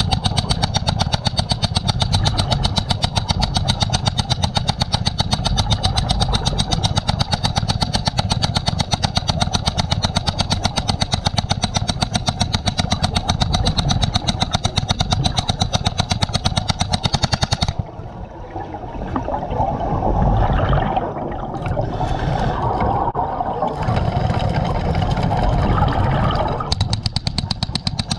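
Hydraulic hammer drill hammering rapidly and steadily into concrete underwater. It stops for several seconds partway through, with a rougher, irregular sound in the gap, then starts hammering again near the end.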